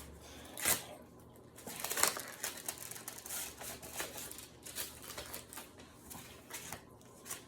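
Trading cards and their packaging being handled: a loose string of light clicks, taps and rustles.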